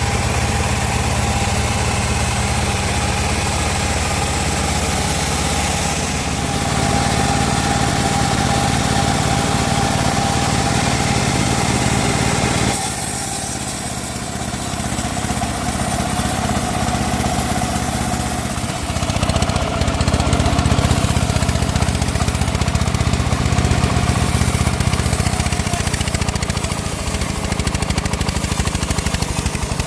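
Homemade log bandsaw running steadily while sawing teak: a continuous mechanical drone with a held high tone. The tone fades about halfway through, and the machine grows louder in the last third.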